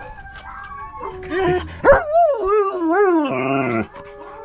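Dog howling: a wavering, yodel-like call that rises and falls several times for about two seconds, then cuts off. Fainter steady howl-like tones come before it.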